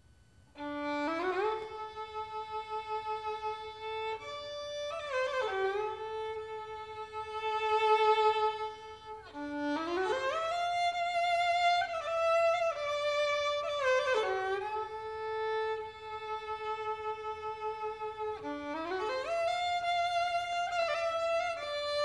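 Solo violin playing a slow melody of long held notes with vibrato, sliding up into several of them, starting about half a second in.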